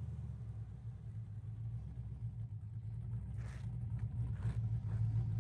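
Low, steady rumble of a car driving along a road, engine and tyre noise with no revving, growing slightly louder near the end.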